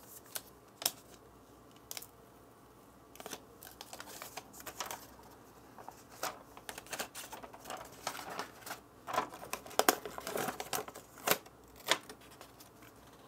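Plastic packaging film crinkling and rustling, with scattered small clicks and taps as a new smartphone is handled and unwrapped.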